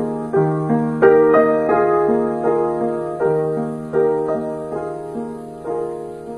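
Background piano music: gentle notes and chords struck at an even, unhurried pace, each fading before the next.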